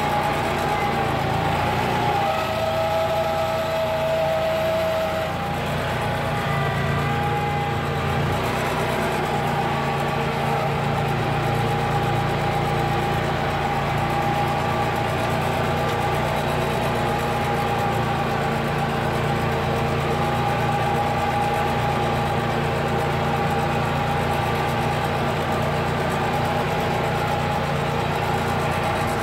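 Simplicity Legacy garden tractor's Kohler 27 hp V-twin gas engine running steadily, with a thin whine over it that shifts in pitch during the first several seconds.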